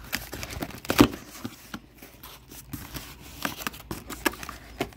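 Cardboard shipping box being opened by hand: packing tape tearing and flaps rustling, with scattered clicks and scrapes and one sharp crack about a second in.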